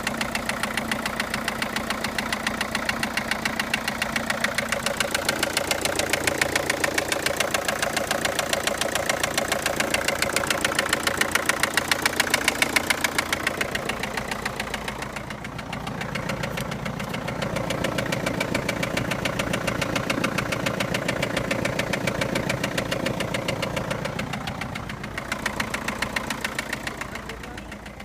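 Opel Astra 1.7 CDTI Z17DTL four-cylinder turbodiesel engine running with a rapid, even knocking clatter that swells and fades a few times. The knock is traced to a faulty exhaust valve.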